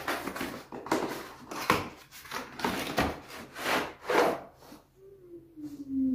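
Cardboard box scraping and rubbing against a round wooden serving dish as the dish is worked out of its packaging, in a run of rasping strokes. A short falling tone near the end.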